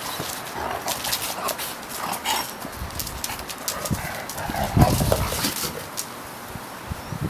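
Two dogs play-fighting on concrete: scuffling and claws clicking on the surface, then a burst of low play-growling about halfway through, the loudest part.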